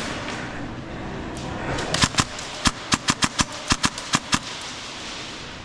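Airsoft gun firing about a dozen sharp shots in quick, uneven succession, starting about two seconds in and stopping a little past the four-second mark.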